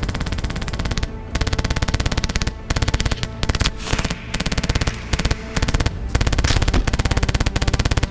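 Airsoft gun firing on full auto in repeated bursts: a rapid, even stream of sharp shots broken by short pauses.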